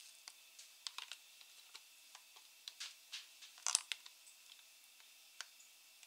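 Kimchi being scraped out of a plastic container with a utensil and dropping into a bowl: scattered soft clicks and small wet plops, the loudest cluster a little before four seconds in.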